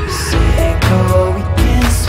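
Background pop music: drum hits and a melody stepping between held notes over a strong bass line.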